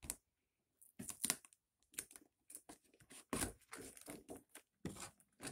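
Packing tape being cut and torn off a cardboard box, with the cardboard rustling as the box is handled: an irregular run of short scrapes and rips.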